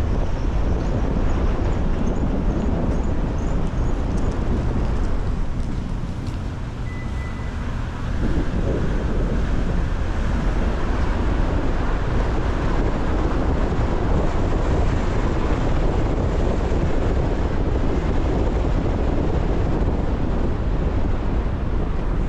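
Storm wind buffeting the microphone over a steady rush of city street traffic, easing briefly about six seconds in.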